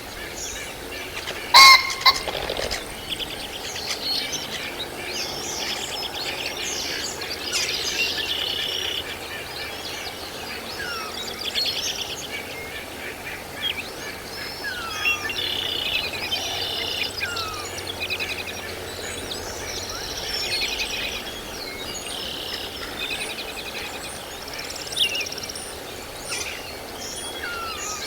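Wild birds chirping and singing: many short overlapping chirps, trills and down-slurred whistles. A sudden loud sound comes about two seconds in.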